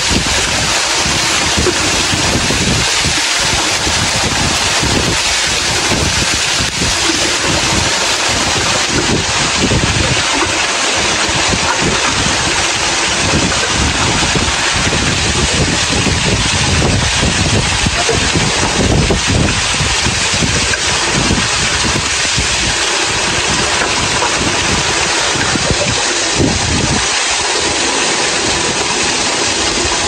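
Waterfall rushing: a loud, steady, even noise of falling water, with uneven low rumbles of wind buffeting the microphone.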